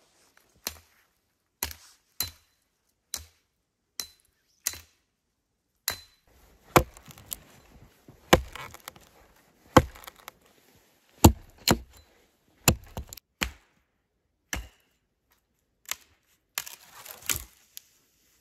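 Hatchet chopping into the base of a thin standing tree trunk: a run of sharp wooden knocks about one a second, louder from about six seconds in, with a quick cluster of knocks and cracks near the end.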